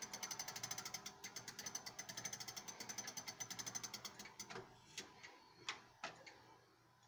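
Emperor grandfather clock being wound with its crank: the winding ratchet clicks quickly and evenly, about ten clicks a second, as a weight is drawn up. The clicking stops about four seconds in, leaving a few separate clicks.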